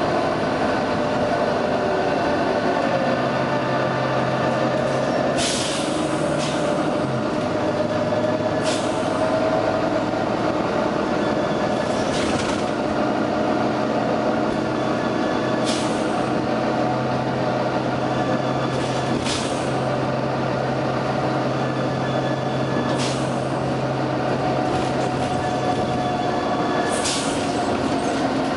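Volvo B9TL double-decker bus running with a steady engine drone, broken every few seconds by short, sharp hisses of compressed air from its air system, about nine in all.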